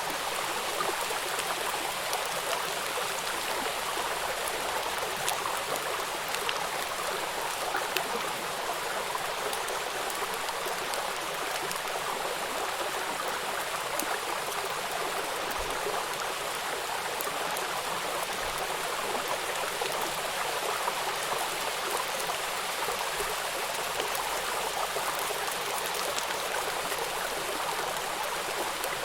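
Running water: a steady, even rush, like a stream, flecked with small ticks throughout.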